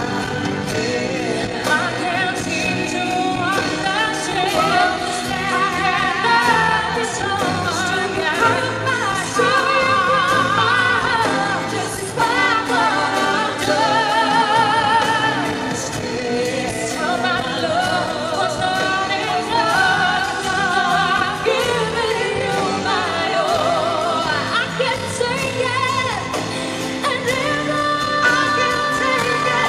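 Two female singers performing a pop ballad duet live with band accompaniment, holding long notes with strong vibrato.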